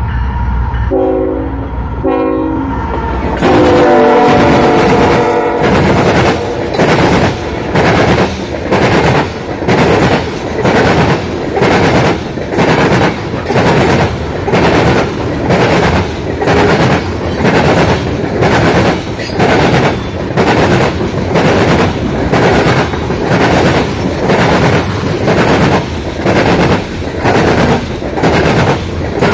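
Freight train passing: a diesel locomotive's horn sounds two short blasts about a second in, then a longer blast over a low engine rumble. After that, loaded coal cars roll by with a steady clickety-clack of wheels, a little more than one beat a second.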